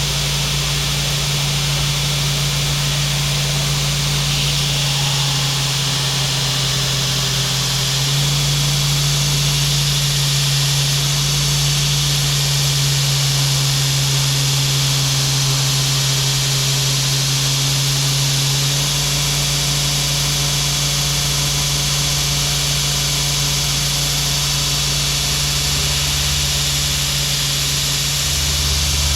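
Steady hum of an electric motor with a broad hiss over it, its pitch shifting slightly a couple of times.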